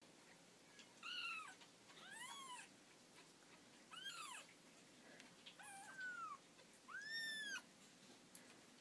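Kittens about twelve days old mewing: five short, high, thin mews, each rising and then falling in pitch, a second or two apart.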